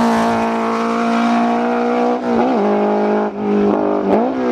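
A single-seater formula racing car's engine at speed: a loud, steady engine note whose pitch dips briefly and comes back about two seconds in, again near three seconds, and once more near the end.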